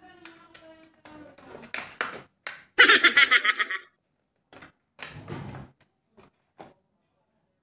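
Clear plastic packaging being handled and a plastic bag pulled open: scattered crinkles and small knocks, with a quick run of rapid ticks lasting about a second, about three seconds in, as the bag opens.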